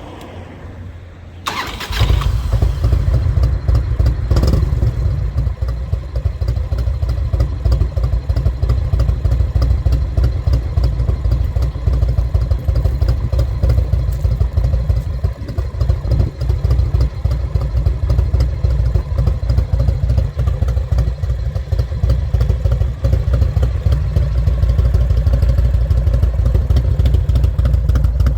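1995 Harley-Davidson Road King's Evolution V-twin, breathing through Vance & Hines pipes with turn-down tips, cranked on the starter and catching about two seconds in, then idling with a loud, steady low rumble.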